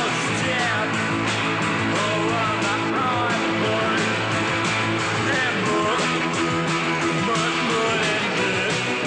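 Background music: a rock song led by guitar, with a steady drum beat.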